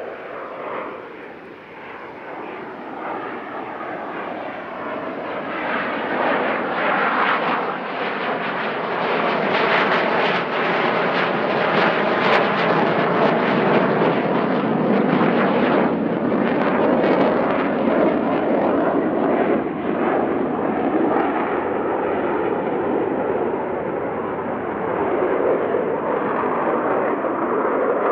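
The twin General Electric F404 turbofans of an F/A-18C Hornet fighter jet in display flight. The jet noise grows louder over the first ten seconds and peaks with a crackling flutter during a close pass around the middle. It then holds steady and slightly lower as the jet pulls up into a climb.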